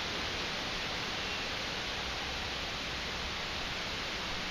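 Storm wind rushing steadily through the leaves of tall trees.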